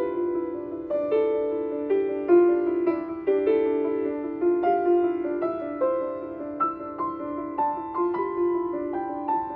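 Grand piano playing alone: a flowing figure of struck, decaying notes, several a second, rising and falling in pitch. These are the opening flowing figures of the piece, meant to evoke a bubbling spring.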